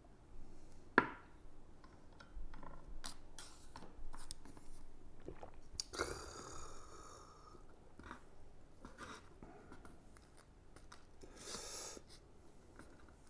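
A person chewing and eating at close range, with scattered small clicks of tableware and a sharp click about a second in. Two short breathy sounds come around the middle and near the end.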